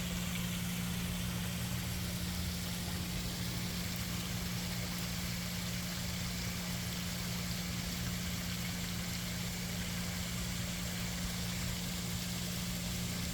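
Steady mechanical hum with one constant low tone over an even hiss, unchanging throughout.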